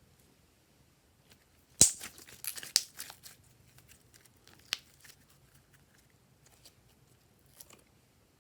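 Close handling noise: a sharp snap about two seconds in, then about a second of crinkly crackling, with a single click a little later and a few faint ticks near the end.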